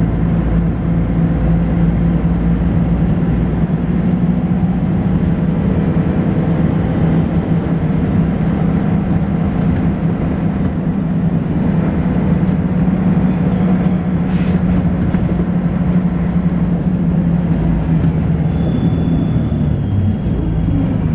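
Volvo B10BLE single-deck bus under way, heard from inside: its rear-mounted six-cylinder diesel running steadily with a thrashy drone, and a thin, strange high-pitched whine throughout that drops in pitch near the end.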